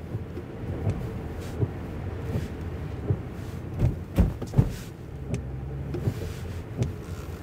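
Car running at low speed, heard from inside the cabin: a steady low engine and road hum, with a few short thumps about four seconds in.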